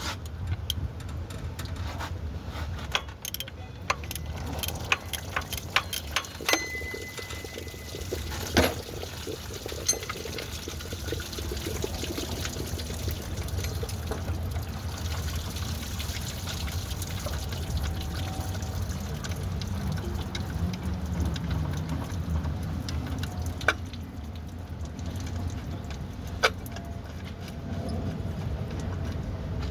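2013 Toyota Corolla running: a steady low hum with scattered clicks and ticks over it, the noise issue that came with the water tank replacement.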